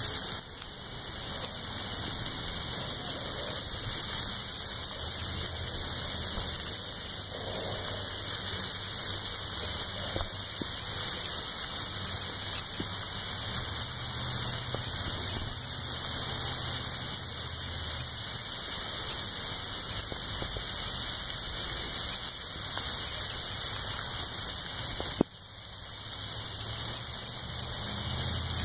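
Ice pellets falling on the trees and ground: a steady, dense hiss of many small hits. A single sharp click near the end.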